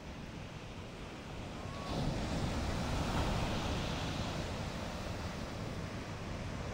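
Surf breaking on the shore with wind on the microphone: a wave crashes about two seconds in and its wash slowly fades.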